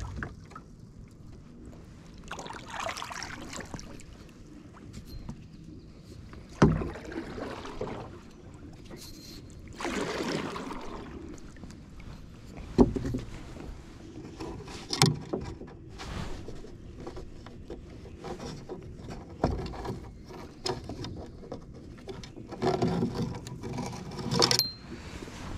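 A small metal jon boat being paddled: paddle strokes swishing through the water, with several sharp knocks of the paddle against the hull.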